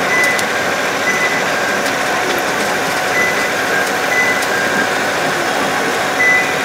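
Sightseeing road train running steadily, a continuous engine and rolling noise, with a few short high beeps at irregular intervals.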